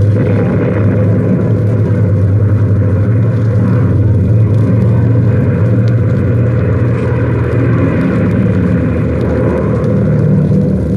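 Steady low drone of piston aircraft engines, standing for Junkers 88 bombers circling overhead. It runs unbroken and evenly.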